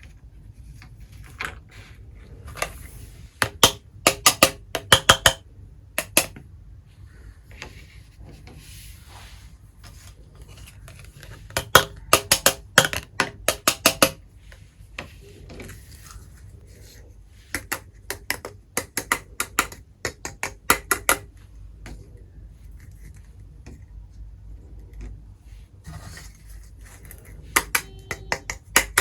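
Miniature toy kitchenware, small pots and utensils, clinking and clattering against each other in quick runs of sharp taps that ring briefly. The runs come in several bursts with pauses between.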